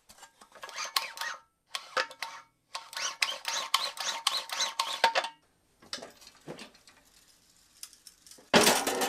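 Recoil starter of a Tecumseh snowblower engine being worked by hand, its freshly oiled pulley and spring mechanism making runs of rapid clicking and rattling. A louder clatter near the end.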